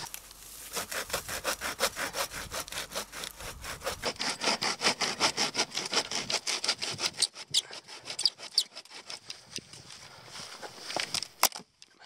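Hand saw cutting through deadwood with quick, even back-and-forth strokes, thinning out to a few last strokes and light clicks near the end.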